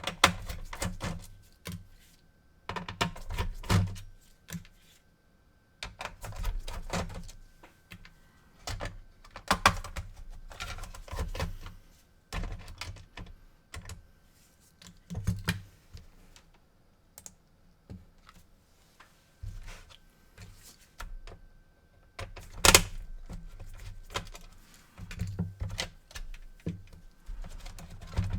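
Irregular clicks, taps and clacks of small plastic and metal parts, with low dull knocks of handling, as a PS4 Blu-ray drive is opened up on the workbench.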